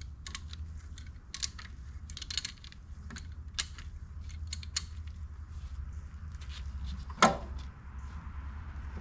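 Hand tools working on the DeSoto Hemi engine: scattered light metallic clicks and clinks of a wrench and sockets on fasteners, with one louder metal clank about seven seconds in, over a steady low hum.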